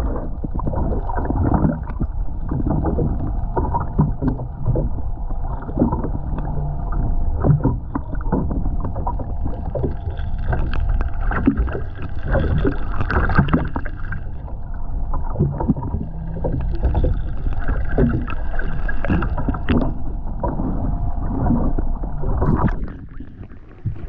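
Muffled underwater sound picked up by a camera held below the surface: a dense, low rumble of moving water against the camera, with many short knocks and a faint steady hum. It drops away near the end.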